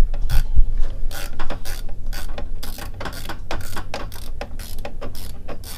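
Socket ratchet clicking steadily, about three clicks a second, as it undoes a T27 Torx bolt holding the steering-wheel airbag.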